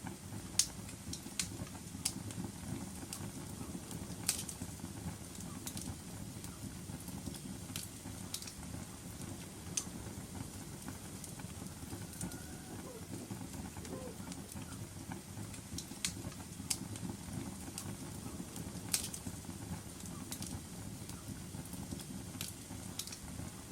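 Wood fire burning in a fireplace: a steady low rumble of flames with sharp crackles and pops coming at irregular intervals.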